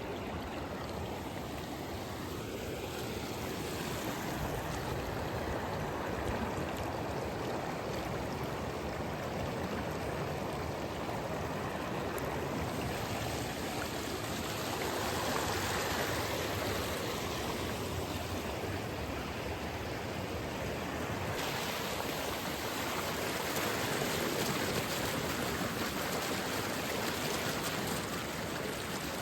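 Steady rushing of flowing water, like a stream, running on without a break.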